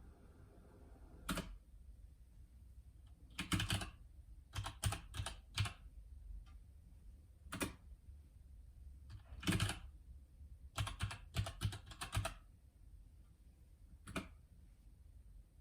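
Keys being pressed on a Keychron K2 mechanical keyboard with Gateron Brown switches and PBT keycaps. The keystrokes come in short irregular bursts of a few keys, with pauses of a second or two between them.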